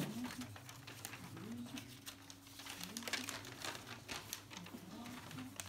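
Paper ballots and envelopes rustling and crinkling in quick, irregular bursts as they are opened and sorted by hand during a ballot count, with a faint murmur of voices.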